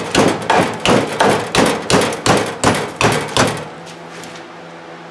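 Hand hammer striking metal in quick, even blows, about three a second and about ten in all, stopping a little past halfway. It is driving on a rust-seized parking-brake part held in a bench vise.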